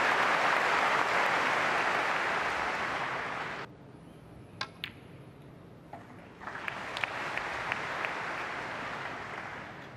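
Snooker arena crowd applauding. The applause cuts off abruptly a little over a third of the way in, and two sharp clicks of snooker balls striking follow about a fifth of a second apart. The applause starts again a couple of seconds later.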